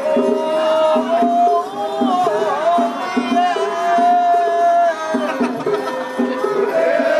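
Japanese festival music: a long, wavering melody line held over steady, evenly repeating drum beats.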